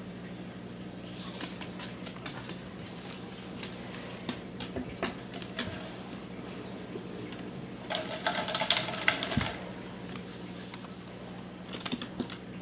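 Kitten's paws and claws tapping, scratching and nudging a glass jar with a metal lid on a wooden floor: a string of light clicks and scrapes, with a louder rattling burst about eight seconds in.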